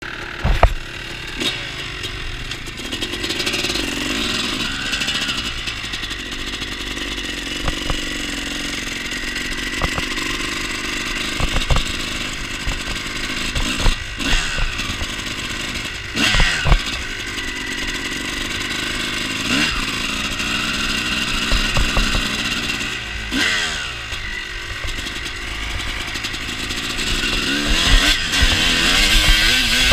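Kawasaki KX250 motocross bike's engine running and being revved, its pitch rising and falling several times, heard from a helmet-mounted camera with frequent knocks and bumps on the microphone.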